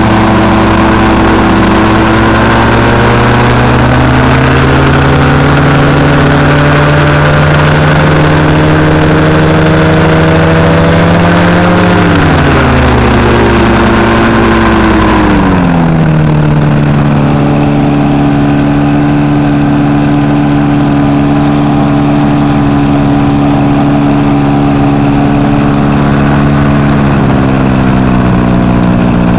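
Rotax 532 rotary-valve two-stroke twin running on a test stand, turning a 60-inch three-blade propeller through its 2.58:1 gearbox. Its speed climbs slowly for several seconds, drops back in two steps around halfway, then holds steady at a lower speed.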